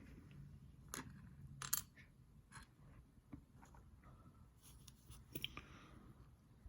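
A few faint clicks and taps of small diecast-toy parts being handled and set down on a work surface, over quiet room hum.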